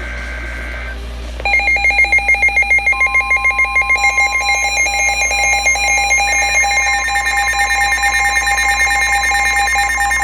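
The tail of a NOAA Weather Radio SAME data burst, a brief two-tone warble, then a loud, rapidly pulsing electronic alert beep. About three seconds in, the steady 1050 Hz weather radio warning alarm tone joins it, marking the start of a severe thunderstorm warning.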